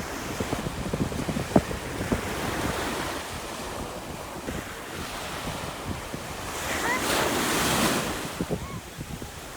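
Ocean waves breaking and washing up the shore, with wind buffeting the microphone; a wave surges loudest about seven seconds in.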